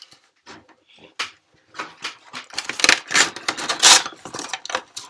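Trading card packaging and cards being handled: irregular crinkling, rustling and small clicks of card stock and foil wrappers, sparse at first and thickening into a denser crinkle about three to four seconds in.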